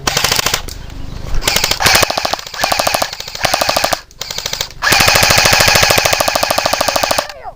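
Airsoft guns firing full-auto in repeated bursts, a rapid rattle of shots. Several short bursts are followed by one long burst of about two seconds near the end.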